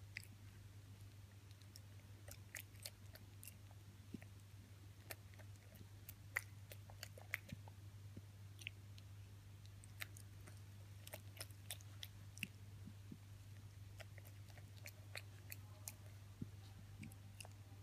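A siamang biting and chewing toast: faint, irregular crunches and mouth clicks over a steady low hum.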